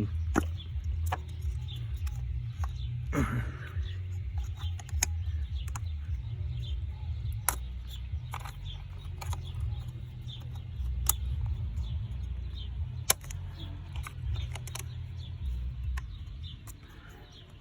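Scattered sharp clicks and knocks of ignition coils on a BMW 328i engine being handled and pressed into place to check their seating, over a continuous low rumble.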